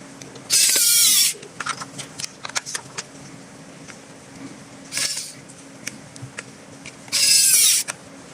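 Toy gun being worked: two loud, noisy bursts of just under a second each, each with a falling tone, come about half a second in and near the end. A run of small mechanical clicks and a softer burst fall in between.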